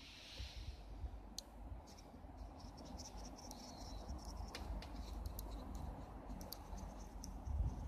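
Faint scattered clicks and crackles from dying barbecue embers and the smouldering stick stirred through them. Under them runs a thin, steady high chirping and a low rumble.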